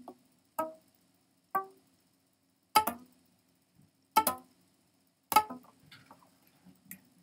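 Sparse improvised guitar: single plucked notes struck sharply about once a second, each dying away quickly, with a few fainter plucks near the end.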